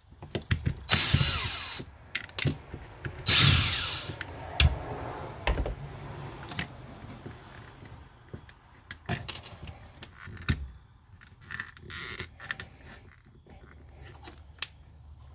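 Small power driver spinning out the screws of a fog light housing in two short bursts, about two seconds apart, followed by scattered clicks and knocks of the plastic housing and tools being handled.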